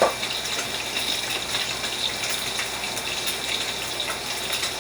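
Fish frying in hot oil in a pot: a steady sizzle with fine crackles.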